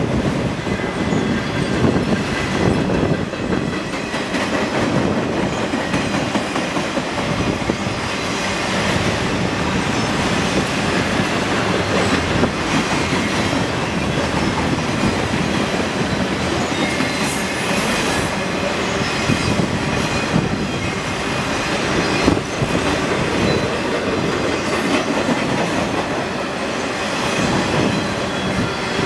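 Freight train of autorack cars rolling past at speed: a steady rumble of steel wheels on rail, with repeated clicks as the wheels pass over rail joints.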